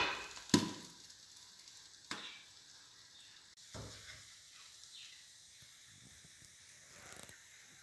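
A glass lid clatters onto a pan of chicken gizzard dry fry twice in the first second, over a faint sizzle. After that come a few light, sparse knocks of a utensil, about two and four seconds in, as the fry is served onto a plate.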